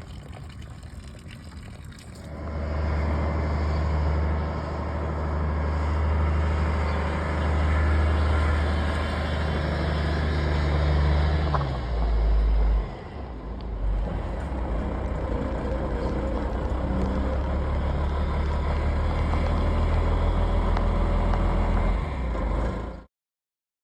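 Truck engine running steadily, with a shift in its sound about twelve seconds in, then cutting off suddenly near the end.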